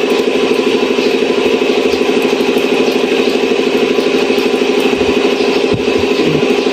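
An engine idling steadily, a loud, even hum with a fast regular pulse.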